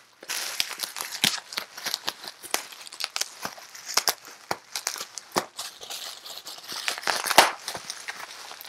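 Plastic bubble-wrap packaging being pulled apart and crumpled by hand: irregular crinkling and crackling with many sharp clicks. The loudest snap comes near the end.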